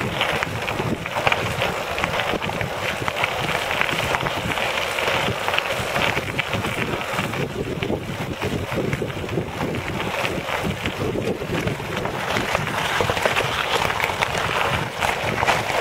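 Tyres of a pedal-powered recumbent quad cycle rolling over a loose gravel track, a steady crackle of stones under the wheels, with wind noise on the microphone.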